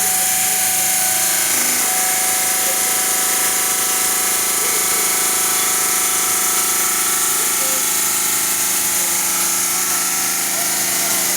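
CNC granite-cutting machine running steadily: a loud, even mechanical noise with a strong high hiss and several steady tones.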